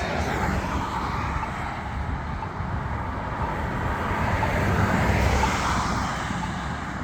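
Road traffic: a passing vehicle's engine and tyre noise, swelling to its loudest about five seconds in and then fading.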